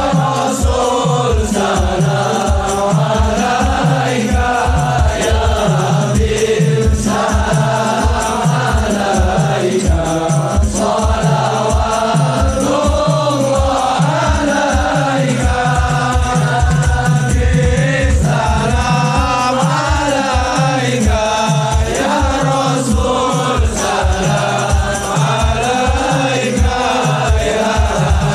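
Sholawat sung during the mahallul qiyam, the standing section of a maulid. The singing runs over hadroh frame drums beating a quick, steady rhythm.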